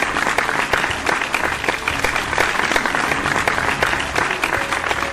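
Crowd applause, dense and steady.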